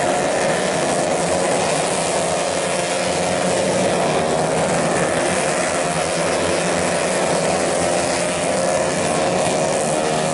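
Racing engines of tuned 131cc automatic scooters running together in a continuous engine note that wavers slightly in pitch.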